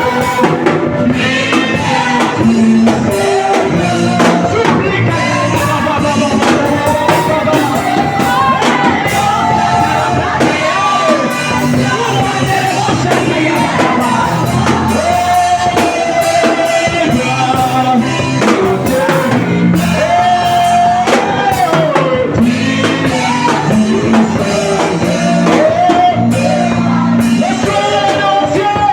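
Music with singing: sung voices over instruments with a steady beat.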